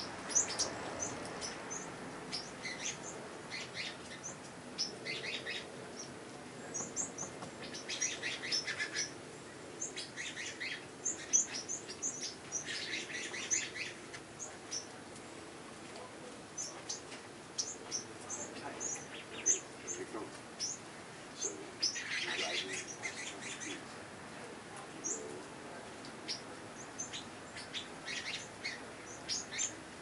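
Several small songbirds chirping and calling: many short, high chirps throughout, with bursts of rapid chattering notes now and then, each about a second long.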